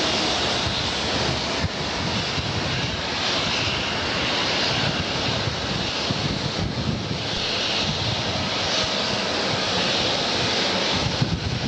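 Twin-engine widebody jet airliner taking off at full thrust: a steady jet roar with a crackling low rumble and a high hiss that swells and eases every couple of seconds.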